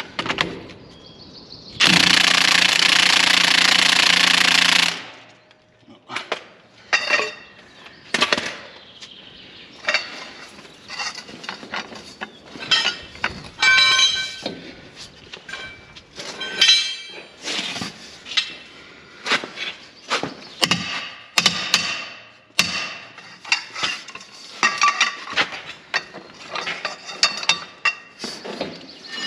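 Cordless impact wrench hammering for about three seconds on a very tightly seized bolt of a rotary power harrow's tine holder, without freeing it. Then a long run of separate metallic clinks and knocks, some ringing briefly, as a long bar and socket are worked on the same bolt.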